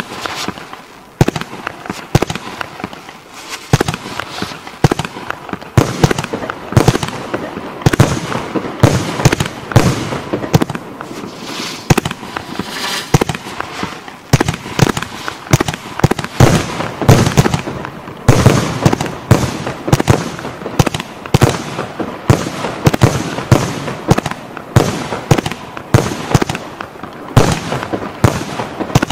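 E525G Element G compound firework battery firing: a continuous rapid series of sharp launch bangs and aerial bursts, several a second, with louder reports every second or so.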